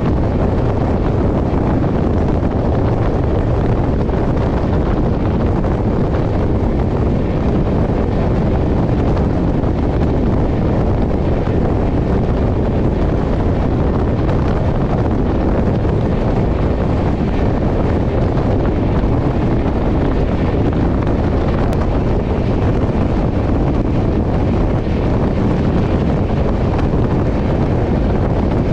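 Steady wind noise on a microphone held out of a moving passenger train's door, over the running noise of the coach on the track.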